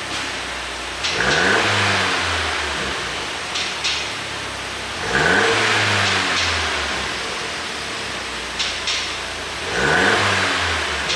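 Mercedes-Benz E350 4Matic engine blipped three times, each rev rising and then falling away, with short sharp exhaust pops and crackles on the overrun from an ECU pop-and-crackle tune.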